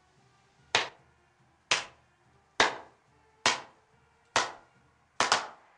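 A team of players clapping slowly in unison, one clap about every second, each ringing briefly in a tiled locker room, with a quicker double clap near the end as the rhythm starts to pick up.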